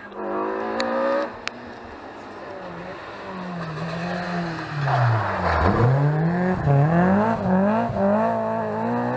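Rally car engine approaching and getting louder. About five and a half seconds in the revs drop sharply, then climb again in several rising sweeps as it accelerates hard up through the gears.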